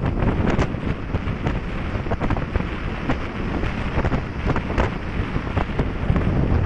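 Heavy, gusty wind buffeting on the microphone of a moving two-wheeler, a loud low rumble that covers the ride's engine and road noise.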